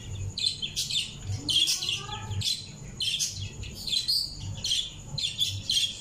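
Small birds chirping over and over, short high chirps about twice a second.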